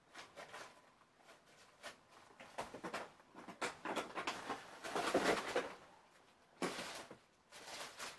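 Bags and papers rustling and crinkling as they are rummaged through by hand, in irregular bursts that are busiest a little past the middle.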